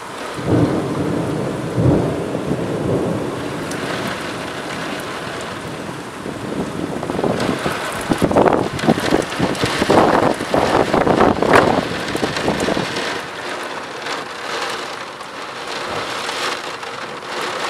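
Heavy storm rain pouring and splashing, a steady hiss that swells louder for a few seconds in the middle before easing off.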